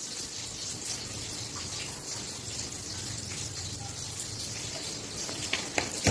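A clear drink poured from a plastic bottle into a glass of ice cubes: a steady gushing pour, with a few sharp clicks near the end.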